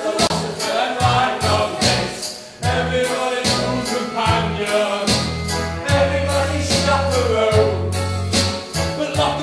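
Stage-musical backing track with a steady beat, with voices singing along.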